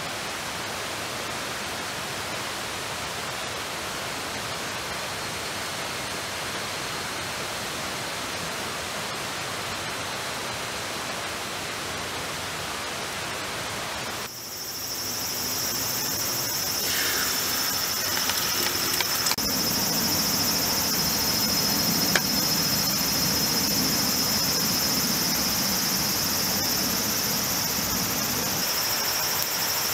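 A steady, even hiss of falling water. About halfway through it gives way to a louder, brighter, high steady sizzle from eggs frying in oil in a steel pan over a campfire.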